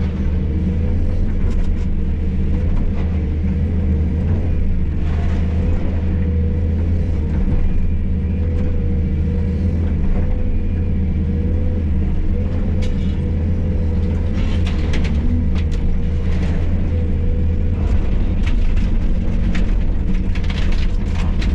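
Hydraulic excavator's diesel engine running steadily under load with a wavering whine, while the bucket scrapes and knocks now and then as it breaks up concrete floor rubble.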